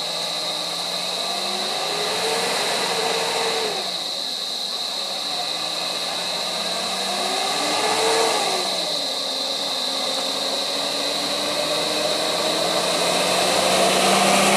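Motor vehicle engines running and revving, the pitch rising and falling about three times and climbing again near the end, over a steady high-pitched whine.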